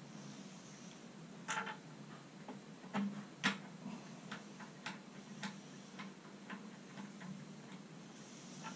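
Light, irregular metal clicks and taps of a small spanner working a nut onto a bolt of a Black & Decker Workmate 536 workbench frame, over a steady low hum.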